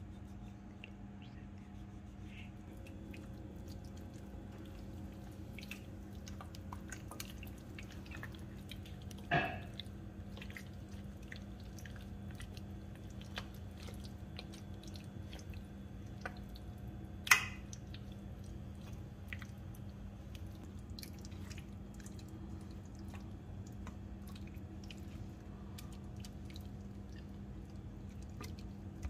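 Raw chicken being handled in a steel bowl: knife scoring the meat, then hands rubbing a wet spice marinade into the pieces, giving soft squelching with many small clicks. Two sharper clicks stand out, about nine and seventeen seconds in, over a steady low hum.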